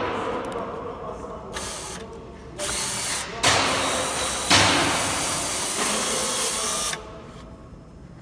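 Cable stripping machine running in several bursts: a short one at the start, two brief ones, then a longer run from about three and a half seconds in that stops sharply at about seven seconds.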